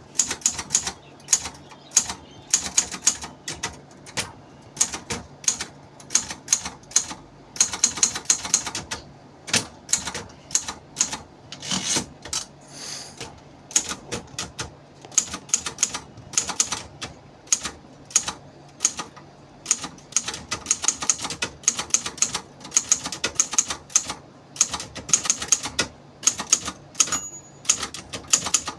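Silver Reed 750 typewriter being typed on: sharp key strikes in quick irregular runs with short pauses between.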